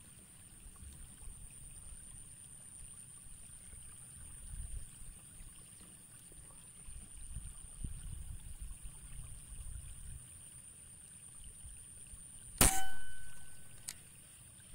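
A PCP air rifle fires a single shot about three-quarters of the way through: a sharp crack followed by a metallic ringing that fades over about a second, then a short click.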